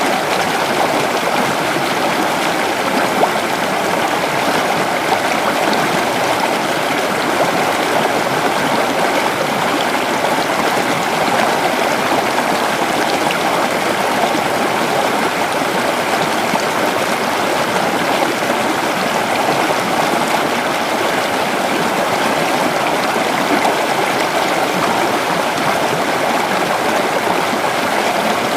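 Shallow creek water flowing and babbling over rocks, a steady continuous rush.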